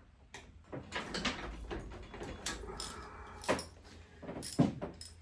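Irregular metallic clicks and clinks of hand tools on bolts of a V-twin engine's top end, with a few sharper ringing clinks in the second half.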